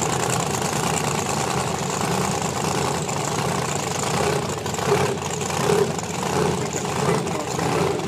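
Drag-racing car engine idling steadily at the start line.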